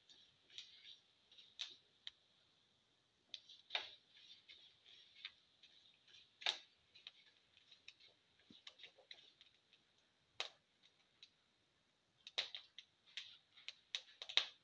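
Mustard and cumin seeds frying in hot oil in a pan, crackling and popping: irregular sharp clicks, some single and some in quick clusters, a few much louder than the rest.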